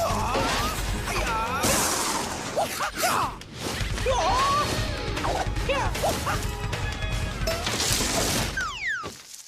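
Cartoon fight sound effects: a rapid string of hits, crashes and whooshes with short cries, over action music.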